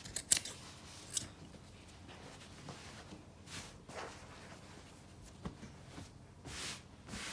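Scissors snipping through denim, two sharp snips about a third of a second and a second in, the loudest sounds. Then softer rustling swishes of the heavy fabric being handled and the trimmed piece pulled away.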